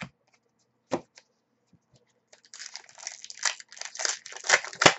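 Trading cards and their foil pack wrapper being handled: a couple of light taps, then from about halfway a crinkling rustle that grows loudest near the end.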